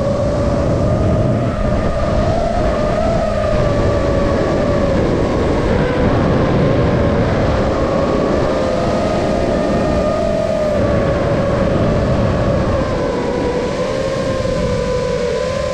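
FPV quadcopter's motors and propellers whining steadily, the pitch drifting gently up and down with throttle, over a low rumble of air noise.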